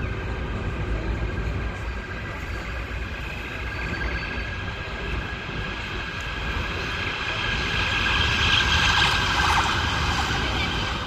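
A steady mechanical whine with several held tones over a low rumble, growing louder about eight seconds in and easing off near the end.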